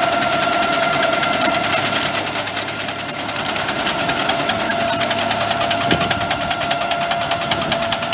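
Mense RP 8L clearing cutter on a Rigitrac SKH95 walking excavator running steadily as it cuts through dense brush, over the excavator's engine: a steady whine with a fast rattle, and a single knock about six seconds in.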